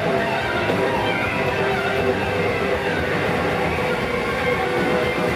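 Live rock band playing loudly, electric guitar and bass in a dense, unbroken wall of sound as heard from the audience.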